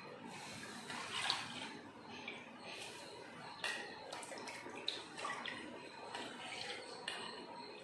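Boiling water in a pan sloshing and splashing as soaked foxtail millet is stirred into it with a wooden spatula, with irregular small splashes and knocks, the sharpest about a second in.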